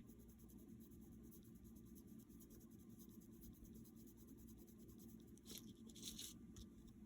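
Faint scratching of a pen marking small check boxes on a paper checklist, a few short strokes a little over five seconds in, over a low steady room hum.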